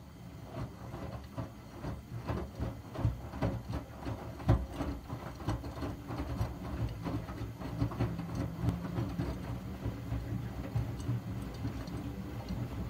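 Miele W3100 front-loading washing machine tumbling wet laundry in its drum during a wash: a steady motor hum under irregular sloshing and thuds, with one sharper thump about four and a half seconds in.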